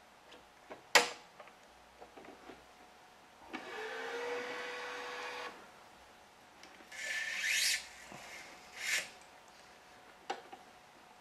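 Gamma 6004 badminton stringing machine at work: a sharp clamp click, then the electronic tensioner's motor running steadily for about two seconds on a cross string set to 30 pounds. Two short rasps of string and another click follow near the end.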